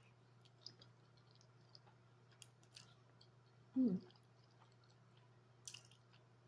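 Close-miked eating sounds of spaghetti: soft wet mouth clicks and chewing, with a brief voiced sound falling in pitch about four seconds in.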